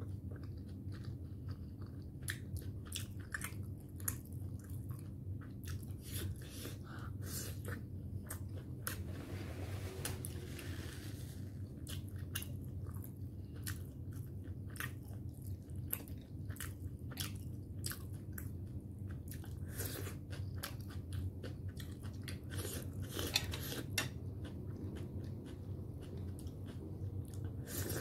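Close-up chewing of soft steamed momo dumplings, with frequent wet mouth clicks and smacks, over a steady low hum.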